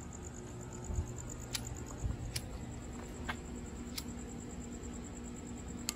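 Night-time outdoor ambience: a steady high insect trill over a low steady hum, with a few sharp clicks and two dull thuds about one and two seconds in.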